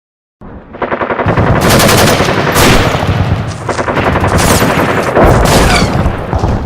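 Loud, rapid automatic gunfire, dense volleys of shots that start suddenly about half a second in, ease briefly in the middle, and run on to the end.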